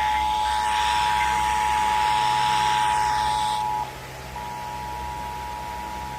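Emergency Alert System attention signal: the steady two-tone alert (853 and 960 Hz sounded together) received over FM radio with static hiss. About four seconds in, the hiss drops away and the tone breaks briefly, then carries on more quietly.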